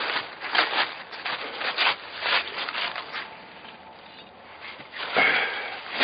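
Footsteps on dry fallen leaves, a step about every half second, pausing briefly before a louder rustling shuffle near the end.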